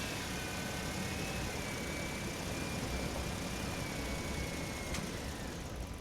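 A motor running steadily with a low rumble, over which a thin high tone rises at the start, holds with a slight waver and fades near the end; a single click about five seconds in.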